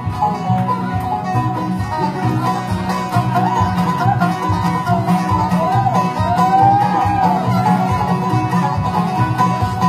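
Bluegrass band playing an uptempo instrumental: banjo picking over a steady bass and guitar rhythm, with a lead line that slides up and down in pitch in the middle.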